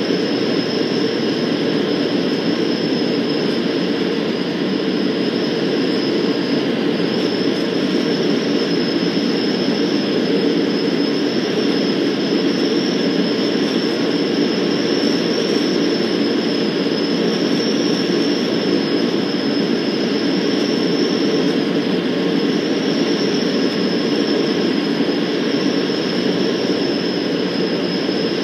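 Van's RV-12's Rotax 912 flat-four engine and propeller running steadily, heard from inside the cockpit as a dense drone with a thin, steady high whine above it.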